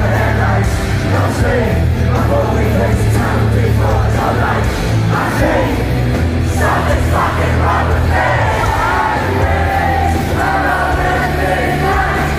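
Live rock music played loud through a concert PA, with heavy bass, and the crowd yelling and singing along; a sung line comes in more clearly about two-thirds of the way through.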